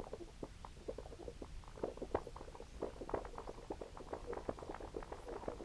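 Effects-pedal output from contrabass clarinet samples run through an OBNE Float into a Walrus Audio Fable. It comes out as a quiet, irregular stream of short pops and crackles, several a second, growing denser after about two seconds.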